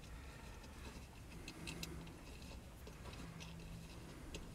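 Faint, scattered light clicks and taps of small metal hardware being handled while a windshield wiper motor is fitted by hand.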